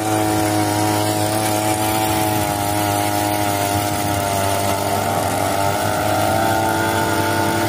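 Handheld petrol earth auger's two-stroke engine running steadily at high speed, with its pitch wavering slightly a little past halfway through.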